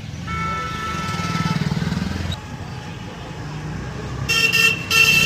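Street traffic: a motor vehicle, likely a motorbike, passes close with a pulsing engine rumble, then a horn honks twice in quick succession near the end.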